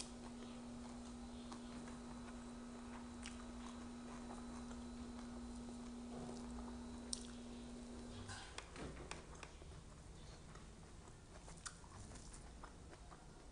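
A person chewing raw vegetables, faint, with small crunching clicks scattered throughout. Under it runs a steady low hum that stops about eight seconds in.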